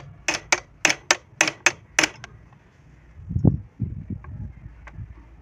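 Quick light metal taps, about eight or nine in two seconds, from a steel rod struck against the front head of a jammed sewing machine to loosen its tight crank; a dull low thump follows about three and a half seconds in.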